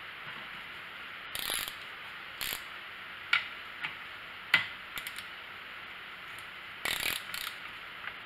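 Ratchet wrench clicking in short bursts, with single sharp clicks between, as it works the spark plug out of a Stihl chainsaw's cylinder.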